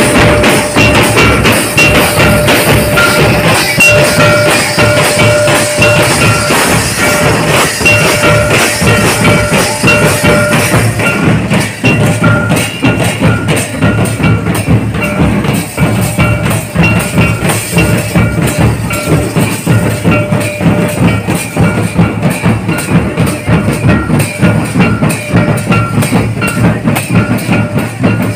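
Live folk drum band: a large bass drum and other drums beaten in a fast, dense, unbroken rhythm, loud, with a steady held high note sounding over the drumming.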